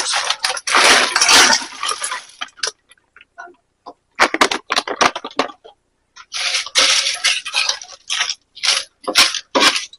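Plastic bag of frozen mixed vegetables crinkling as it is handled and emptied into the pot, the frozen pieces clattering in. It comes in crackly bursts: a long one at the start, a pause about three seconds in, then a string of short ones.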